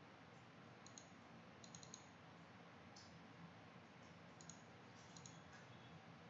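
Faint computer mouse clicks, some single and some in quick runs of two or three, over a low steady room hiss.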